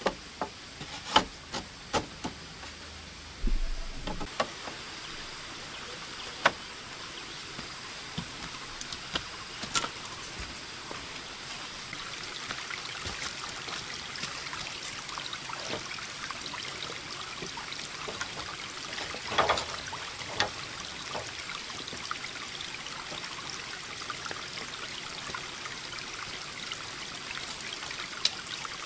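Hollow knocks and clacks of green bamboo poles being handled and fitted into a wall, a few at a time: several close together in the first seconds, then sparser ones, the loudest about two-thirds of the way in. Underneath, a steady hiss like running water.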